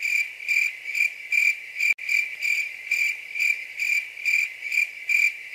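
Cricket chirping sound effect: a steady high trilled chirp repeating about twice a second, starting and stopping abruptly.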